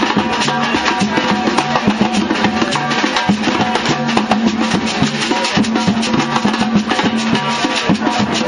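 Samba bloco band playing live: a dense, steady samba rhythm of drums and percussion with plucked strings underneath.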